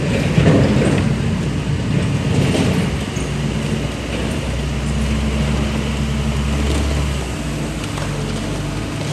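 Diesel engine of a wheel loader running as the loader drives forward pushing a bucketful of flood debris, with a rough noise over the first three seconds and a deeper engine drone swelling from about four to seven seconds in.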